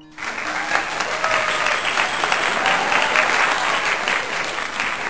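Applause from an audience, starting suddenly and running steadily as a dense patter of many hands clapping.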